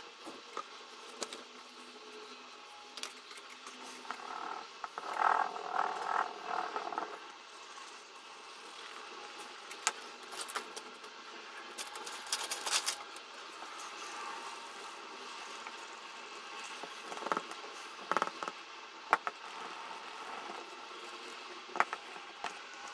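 Quiet workbench handling: small taps and knocks of tools and a jar set on a cutting mat, and leather being handled and rubbed. A short pitched, rattling call-like sound comes about five seconds in.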